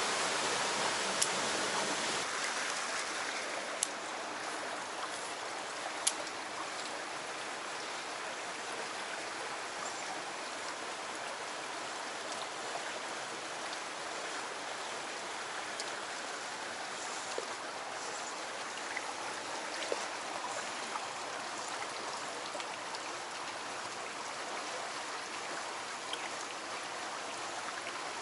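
Steady rushing of a small rocky creek, with a few faint sharp clicks scattered through it.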